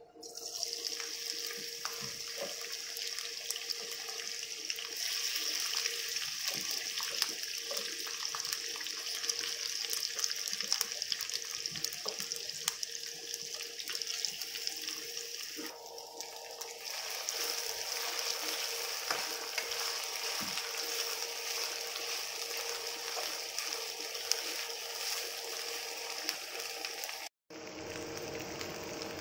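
Sliced potatoes and onions sizzling and crackling in hot oil in a non-stick wok, starting as they go into the pan. A steady hum runs underneath, and the sound cuts out briefly near the end.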